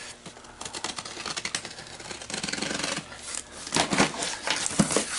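Cardboard shipping box being opened by hand: a run of quick scratchy clicks and rubbing as the top is pried and pulled open, getting louder near the end.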